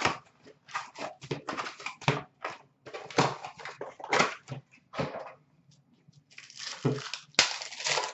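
Hockey card packs and their box being handled and torn open: an irregular run of crinkling and rustling from foil wrappers and cardboard, busiest and loudest near the end.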